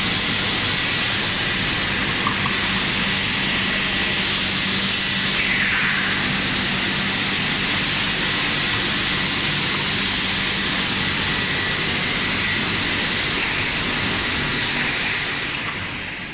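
Machinery of a PVC pipe extrusion line running: a loud, steady noise with a constant low hum and a high whine, fading out near the end.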